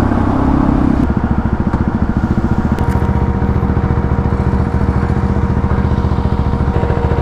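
KTM Duke 390 single-cylinder motorcycle engine running, dropping from a light rev to a steady, evenly pulsing idle about a second in as the bike stops at the booth.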